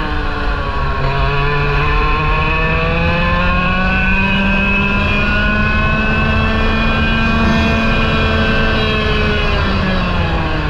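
Parilla SS20 100cc two-stroke kart engine under full throttle, heard from onboard the kart: its pitch climbs steadily out of a corner along the straight, holds near the top, then falls near the end as it comes off the throttle for the next bend.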